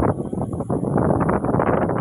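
Strong gusty wind buffeting the microphone and rushing through coconut palm fronds.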